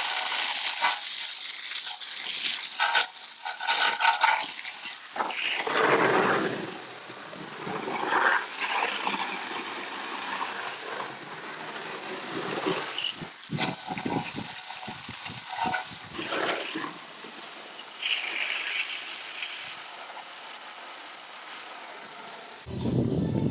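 Water spraying and splashing from a hose while a car is washed, the rush rising and falling in strength.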